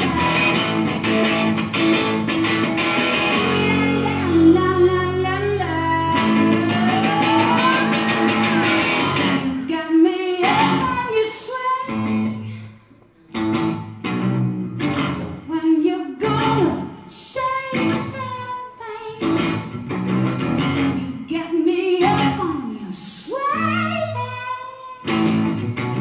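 Live electric guitar playing through an amplified PA: dense and full for about the first ten seconds, then broken into choppier phrases with sliding notes, with a short drop to near silence about thirteen seconds in.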